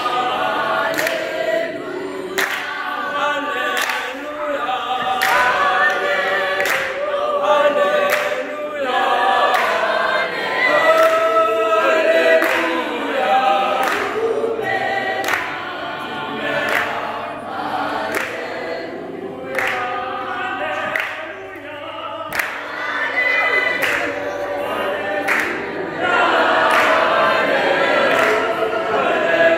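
A small mixed group of teenage voices, boys and girls, singing a cappella in harmony, with sharp claps keeping a steady beat.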